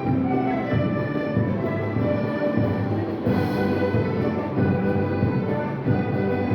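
Orchestra of Andean and Latin American instruments playing a piece live, held melody notes moving over a steady bass line.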